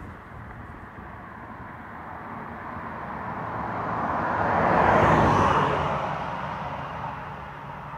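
A vehicle passing by, growing louder to a peak about five seconds in and then fading away, over a steady background hiss.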